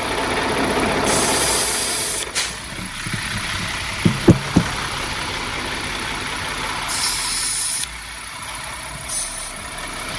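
Refrigerant hissing out of an AC charging hose as it is purged of air from the freon can, in two short spells, over a steady engine-like running noise, with a few sharp clicks about four seconds in.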